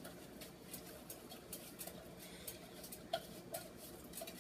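Chopped peppers and chipotle in adobo crackling faintly in butter in a pan, with small irregular pops and ticks.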